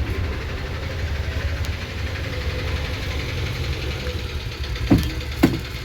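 Piaggio Ape diesel engine running steadily at idle, with two sharp knocks about half a second apart near the end.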